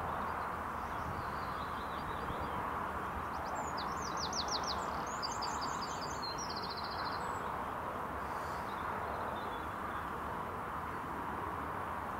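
A small songbird singing one short phrase about four seconds in: a run of quick, high descending notes ending in a rapid trill, with a few faint chirps before it. Under it runs a steady outdoor hiss.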